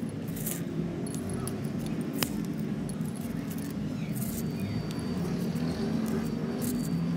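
Short, scratchy rattles of gritty, pebbly potting mix being pressed down and worked with a plastic scoop around a succulent in a ceramic pot. A steady low rumble runs underneath.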